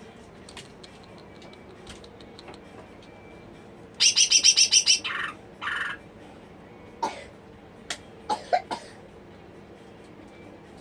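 Green leafbird (cucak ijo) calling: a loud rapid burst of about ten chirps about four seconds in, a shorter call right after, then a few sharp single notes.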